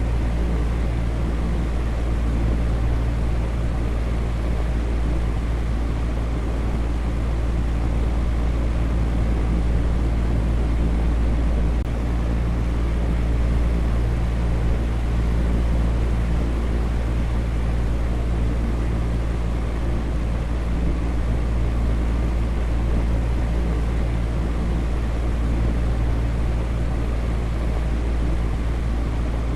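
Electric fan running steadily: an even whooshing hiss over a low motor hum that does not change.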